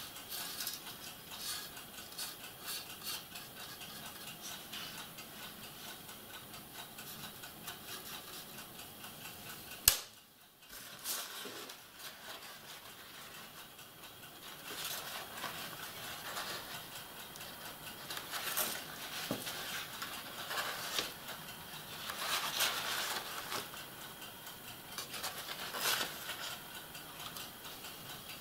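Quiet handling sounds of painting a plastic model part with a paintbrush: faint light scratching and ticking, and one sharp click about ten seconds in. The second half has denser rustling and crinkling of a paper towel as it is handled.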